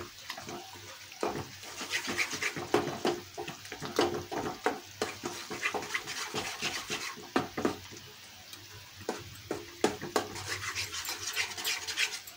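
A spatula stirring and scraping thick mawa around a kadhai in quick, irregular strokes, several a second. The mawa is being roasted in ghee and is kept moving so it does not stick to the bottom.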